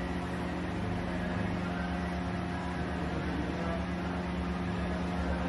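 Steady low hum with a rumble beneath it, unchanging throughout, typical of a room's machinery or ventilation noise.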